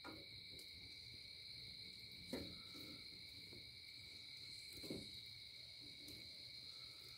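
Faint, steady chorus of night insects holding two high pitches without a break. Two brief faint sounds come about two and a half and five seconds in.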